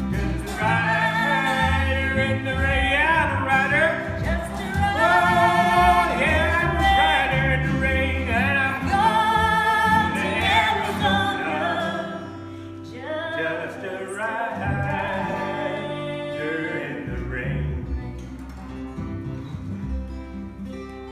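The closing part of a live country song: a voice singing long, wavering notes over acoustic guitar, quieter from about halfway and dying down near the end.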